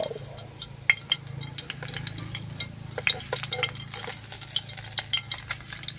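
A patty of tiny tugnos fish, bound with egg and cornstarch, frying in hot oil in a wok. The oil sizzles with many sharp crackles and pops, over a low steady hum.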